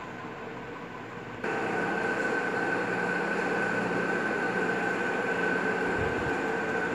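Electric ceiling fans running: a steady whir of motors and blades with a steady high whine. It gets suddenly louder about a second and a half in.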